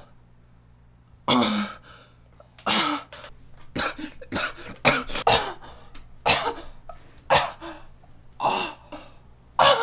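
A man coughing and gagging in a series of about ten harsh bursts, retching as if about to vomit.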